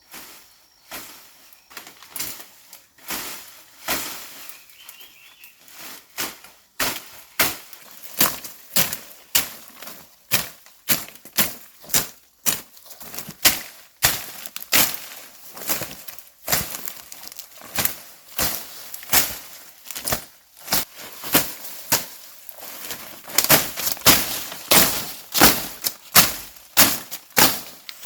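Repeated chopping strikes of a blade into wood and brush, hacking steadily at about one to two blows a second, sparser in the first few seconds.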